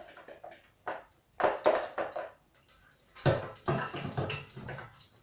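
Deep-fryer wire basket being shaken, freshly fried chips rattling against the mesh and each other in several bursts of clattering.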